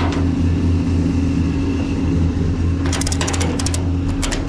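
A vehicle engine idling steadily, with two short runs of rapid clicking about three and four seconds in.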